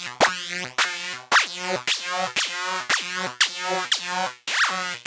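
Vanguard software synthesizer playing a looping psytrance full-on lead riff of short, stacked-harmonic notes, several opening with a quick falling pitch sweep from the pitch envelope. The sweep carries way too much pitch.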